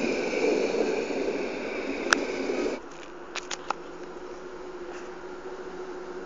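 EN57 electric multiple unit passing close by, its wheels and running gear making steady rumbling noise with a high steady whine, and one sharp click about two seconds in. Shortly after, the sound cuts off abruptly to a much quieter steady background with a few faint clicks.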